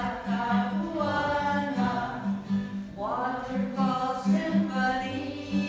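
A group of children singing a song together in unison over a steady low beat.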